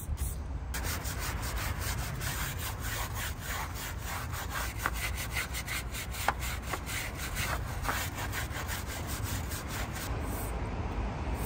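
Rapid back-and-forth scrubbing by hand on a motorcycle during a detailing wash, several strokes a second. It starts about a second in and stops near the end.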